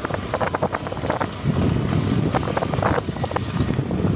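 Motorcycle ridden along a bumpy dirt track: the engine running under wind buffeting the microphone, with frequent irregular knocks and rattles as it goes over the ruts.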